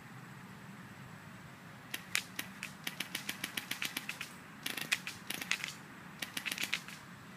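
Polar Star HPA airsoft M4 firing three full-auto bursts through a homemade KX3-style amplifier flash hider: rapid sharp pops at about six shots a second, a long burst then two shorter ones.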